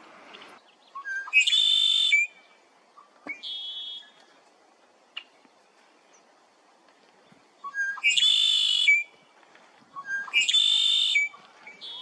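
Male red-winged blackbird singing its song three times, each a few short introductory notes followed by a trill about a second long, with a shorter call between the first two songs.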